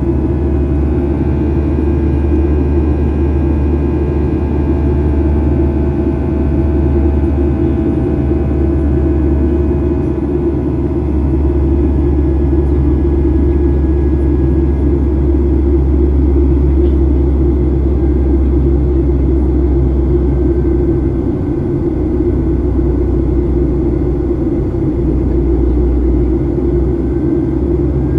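Cabin noise of a Boeing 737-800 in flight, heard from a seat by the wing: a loud, steady low rumble of its CFM56 turbofan engines and the airflow, with faint higher engine tones held over it.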